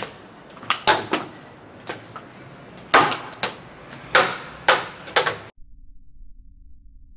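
A series of sharp knocks, about nine of them at irregular intervals, each with a short ringing tail. The sound cuts off abruptly about five and a half seconds in, leaving only a faint low rumble.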